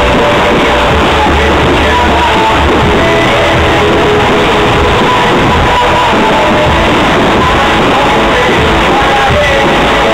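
Loud music with singing, the soundtrack of a pyromusical fireworks show played over loudspeakers.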